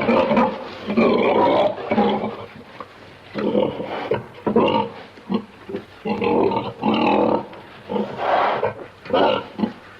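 Domestic pig grunting over and over in a run of short, rough grunts with brief gaps between them.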